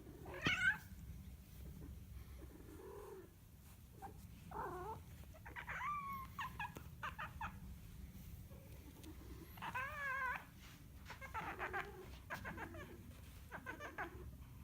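Domestic cat giving a series of meows, about seven calls with pauses between, some with a wavering quaver that makes them sound like a ram bleating.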